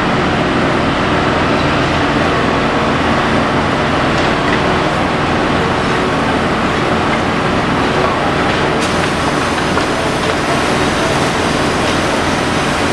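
Fire engines running steadily, their diesel engines and pumps driving the hose jets: a loud, constant mechanical noise with a low steady hum.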